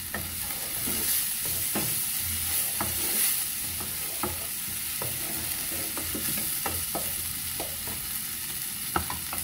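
Fresh corn kernels sizzling in butter and oil in an enamelled frying pan while a spoon stirs them, scraping and tapping the pan about once or twice a second, with a sharper knock near the end.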